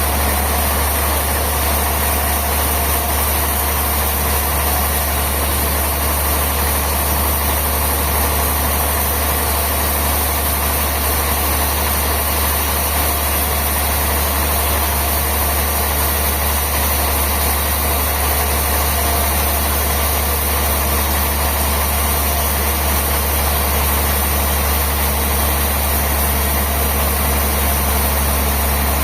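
Sawmill machinery running steadily, a constant low hum with an even mechanical noise that does not change.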